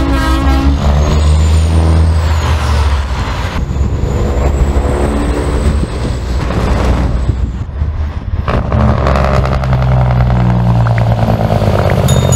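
Semi-truck diesel engines running loud and deep, easing off midway and building again, with a high whistle that rises and falls in the first few seconds and a hiss of air.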